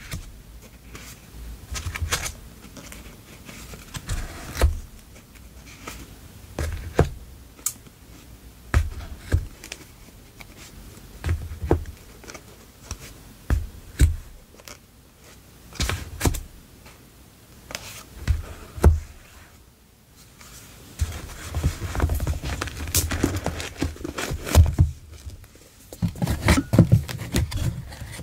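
Paper memo pads and plastic-sleeved stationery handled on a wooden desk: irregular paper rustles with soft taps and thuds as pads are shuffled and set down. Near the end the rustling becomes denser and more continuous.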